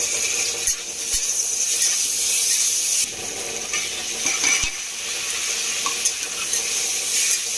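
Dried peas, tomato and green chillies sizzling in hot oil in a steel kadhai, stirred with a flat metal spatula that scrapes the pan and knocks against it a couple of times.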